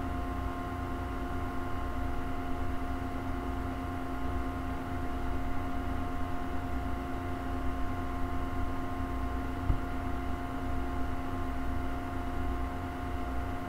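Steady background hum and hiss with a low rumble, holding several constant tones, and one short click about ten seconds in.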